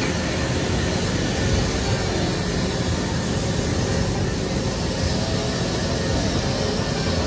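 Flying-elephant fairground ride running, its arms turning the raised elephant cars round: a steady, loud rushing noise with a low rumble underneath.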